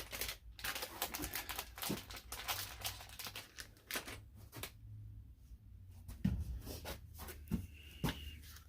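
Wooden jig pieces and dowels being handled, with many irregular clicks, knocks and rustling.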